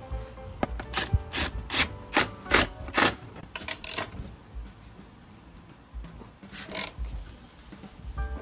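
Ratchet wrench clicking in a run of strokes, about two or three a second, then a few more near the end, as the motorcycle's rear axle and chain adjusters are worked to set the drive chain tension.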